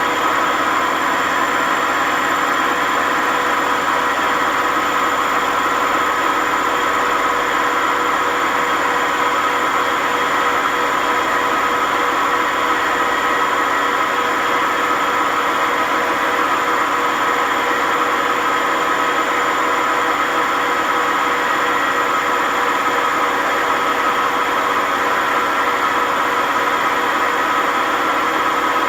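WMA50 washing machine on a fast spin with its drum ballast removed: a loud, steady whine and rumble of very bad, worn drum bearings.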